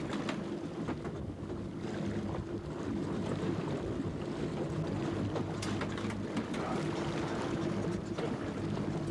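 Fishing boat's engine running steadily under way, a constant low drone, with wind and water noise over it.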